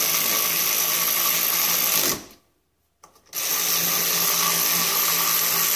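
Red cordless electric ratchet spinning the nut on a Yamaha Bruin 350's rear brake drum hub, its motor whining steadily. It runs twice for about three seconds each time: the first run stops about two seconds in and the second starts about a second later.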